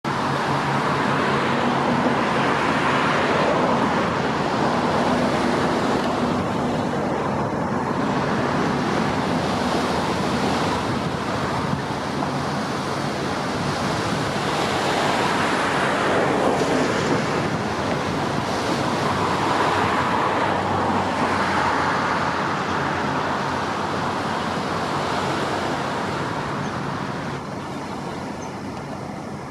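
Steady rushing noise of road traffic with wind, swelling and fading several times as vehicles pass, over a faint low hum.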